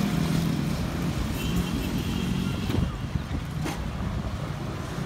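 Strong storm wind blowing and buffeting the microphone with a steady low rumble.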